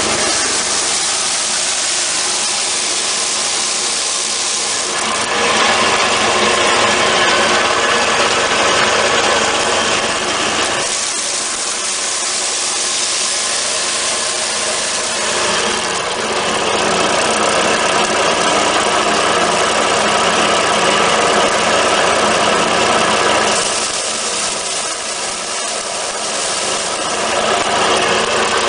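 Hammer mill driven by a Kubota engine, running steadily while wheat is fed in and the heads are beaten off to thresh out the grain. The mechanical noise is loud and dense, and its hiss swells and eases every few seconds.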